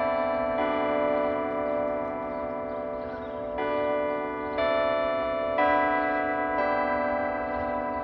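Church bells chiming a tune. Each new note strikes sharply and rings on steadily, about one note a second, with one note near the start held for about three seconds.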